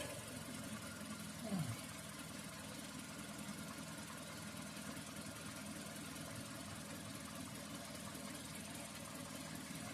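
2017 Mazda CX-5 engine idling faintly and steadily while it warms up to operating temperature, with a brief falling tone about a second and a half in.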